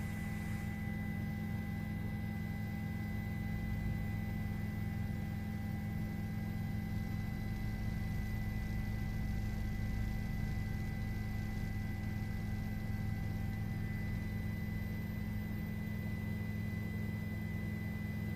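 Helicopter engine and rotor noise: a steady low drone with a constant high whine, unchanging throughout.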